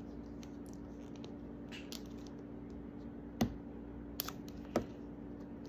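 Fingernails scratching and clicking at the seam of a plastic Mini Brands capsule ball as it is pried at, with three sharp clicks in the second half. A steady low hum runs underneath.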